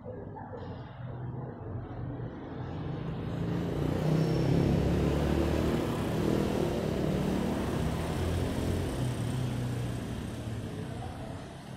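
A motor vehicle passing by, its engine and road noise swelling to loudest about four to six seconds in and then fading away.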